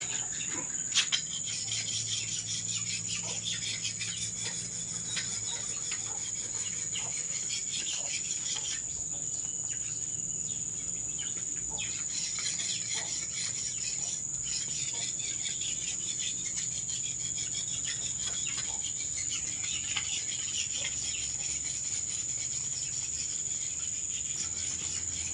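Outdoor ambience: a steady, high-pitched insect drone with many scattered short chirps and small clicks. A couple of sharp knocks come about a second in.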